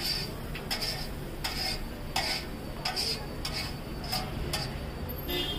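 Metal spatula scraping and clanking on a large flat griddle while stirring and turning frying vegetables, in quick separate strokes about one every half second, each with a short metallic ring.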